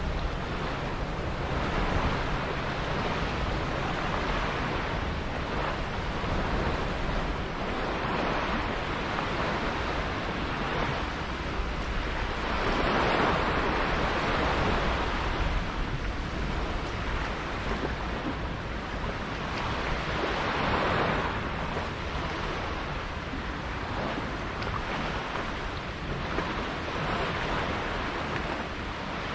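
Sea water washing and wind buffeting the microphone, a steady rushing noise with a low rumble. It swells louder about halfway through and again about two-thirds of the way in.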